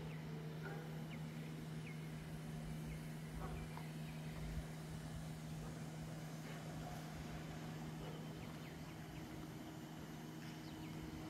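Quiet outdoor ambience: a steady low hum with low rumbling noise, and faint scattered bird chirps.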